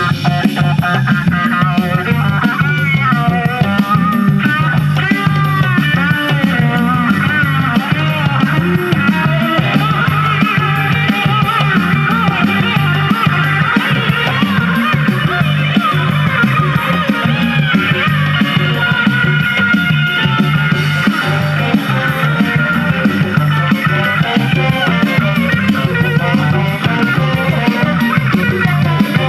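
Music playing back from a cassette on a Fisher PH-480 boombox, its deck freshly re-belted and speed-calibrated.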